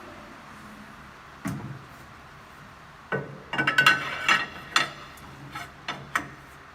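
Lilliput 290M end milling machine working: a single metal knock, then a low motor hum that starts about three seconds in, with a quick run of sharp metallic clanks and rattles.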